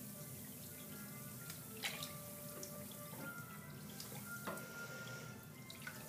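A wild rose bath bomb fizzing in a tub of bathwater, with a few drips and small splashes as a hand moves through the water, the sharpest about two seconds in. Faint steady tones sit underneath.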